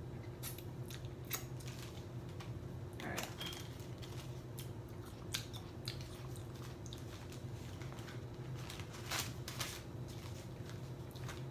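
Paper burger wrapper crinkling and rustling in short, sharp crackles as hands handle and close up a burger, over a steady low hum.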